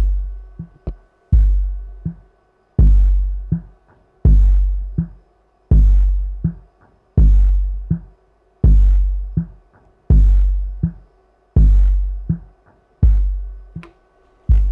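Three JL Audio 8W6 8-inch subwoofers, driven by a Kicker ZR240 amplifier, playing electronic music with a deep bass drum hit about every second and a half, each hit slowly dying away, with lighter ticks between the hits.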